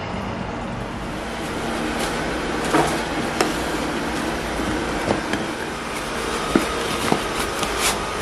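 Plastic lunch containers and a canvas lunch bag being handled on a counter: a few light knocks and clicks, spread over the last five seconds, above a steady mechanical hum.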